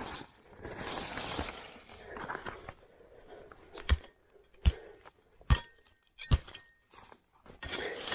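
A small shovel scraping and crunching through leaf litter and soil, then chopping into the ground four times, sharp strikes a little under a second apart.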